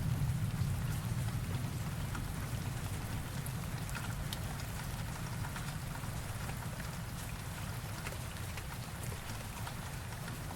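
Steady rain falling, with scattered sharp drop ticks over an even hiss, while the low rumble of a thunder roll dies away over the first couple of seconds.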